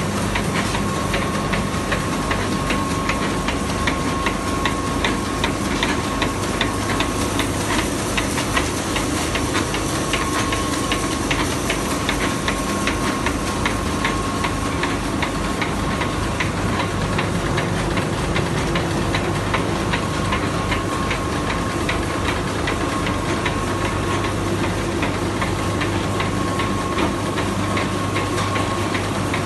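Focus 250 four-colour central-impression flexographic label press running at speed, a steady mechanical clatter of fast ticking over a constant hum, with a steady high-pitched whine.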